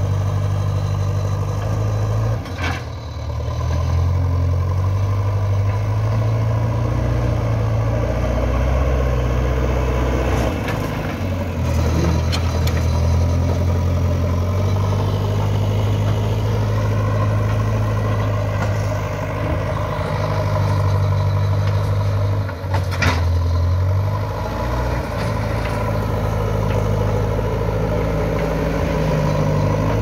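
Old JCB 3DX backhoe loader's diesel engine running under load as the machine works earth, its speed stepping up and down several times. Two sharp knocks stand out, one near the start and one about three-quarters of the way through.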